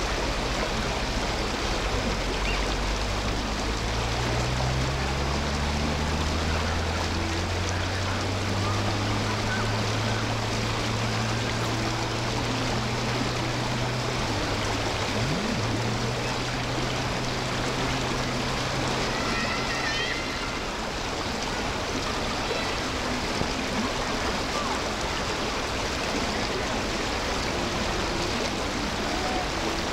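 Steady rush of fast-flowing water in a stream swollen high after heavy rain. A low hum rises slowly in pitch through the first half and fades out about two-thirds of the way through.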